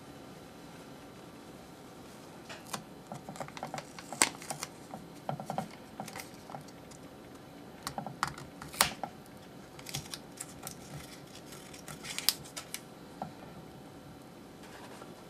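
Scattered light clicks and taps of hands handling tape, a paper towel and a white dish on the rim of nested stainless steel bowls, loudest in a few sharp clicks about four, nine and twelve seconds in.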